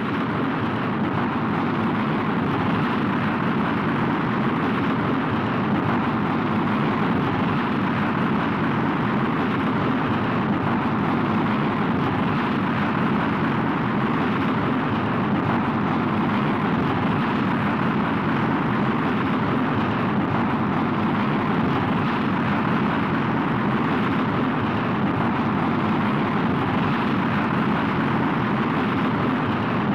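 Rocket launch engine noise: a dense, steady rushing rumble that cuts in abruptly and holds at an even level, with no distinct pitch or rhythm.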